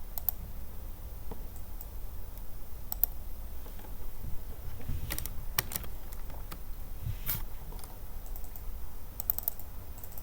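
Computer keyboard keys being pressed in scattered clicks, single keystrokes and short runs with pauses between, over a steady low hum.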